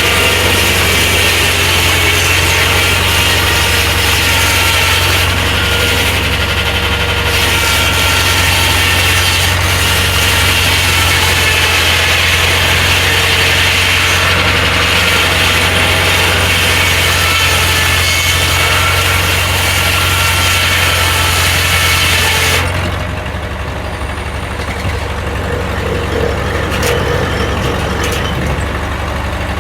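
Engine-driven Corley circular sawmill running steadily with a loud engine hum and a high hiss. About three-quarters of the way through, the hiss drops away and the mill runs on more quietly.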